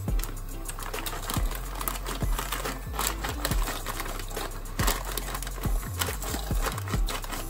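Plastic bag of dry pasta crinkling and rustling with many small crackles as the pasta is poured out, over background music.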